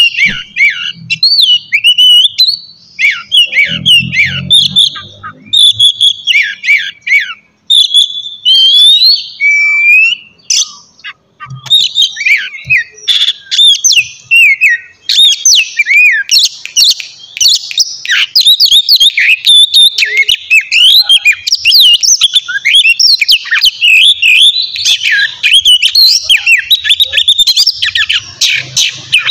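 Oriental magpie-robin (kacer) singing a loud, varied song of quick whistled and bending notes, almost without pause.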